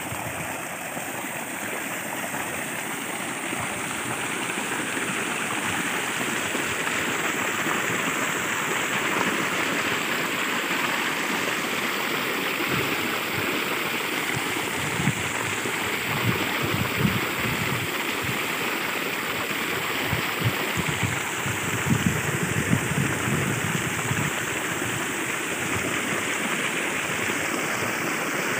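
Water gushing from a bore well's outlet pipe and splashing onto the ground, a steady rushing splash, with a few short low thumps in the second half.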